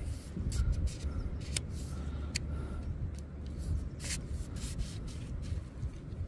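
Wind buffeting the microphone with a low rumble, with short scrapes and clicks of a baiting pole sliding through the hands as it is pushed out over the water.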